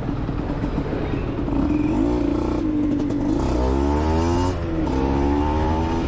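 Aprilia SX 125's single-cylinder two-stroke engine through an Arrow exhaust, running at a steady note and then revving up from about three seconds in. The revs dip briefly about four and a half seconds in and climb again.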